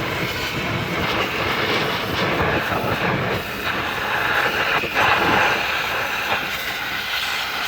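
Pressure washer spray from a wand fitted with a pivoting swivel adapter, blasting the underside of a car: a loud, steady hiss of high-pressure water that shifts a little as the spray moves.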